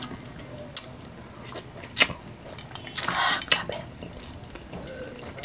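Eating sounds: a few sharp clicks of fingers and chicken feet against a small ceramic bowl, with a short wet noise of chewing and sucking about three seconds in.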